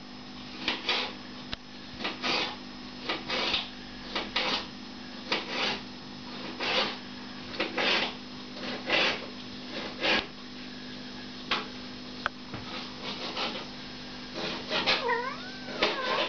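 Five-week-old British Shorthair kitten mewing over and over, short high cries about once a second, with a few longer meows that bend in pitch near the end.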